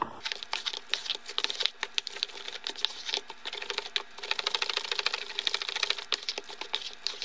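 A metal utensil stirring macaroni and cheese in an orange plastic microwave bowl: rapid, irregular clicking and scraping of metal against the plastic, several ticks a second, without a break.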